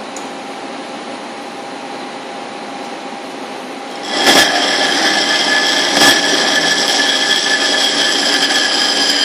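Computerized metal-cutting band saw running with a steady hum. About four seconds in, the blade meets the metal stock and a loud, high ringing whine of the cut starts and holds, with a couple of sharp knocks.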